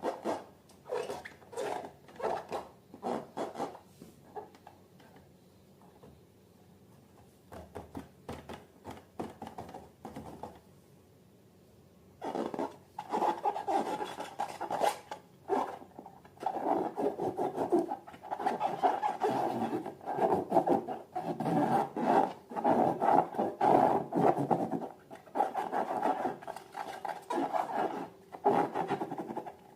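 Hands working slime and balloons, making rubbing and scraping sounds. It starts as separate short strokes with quiet pauses between them, then becomes a dense, continuous rubbing from about twelve seconds in.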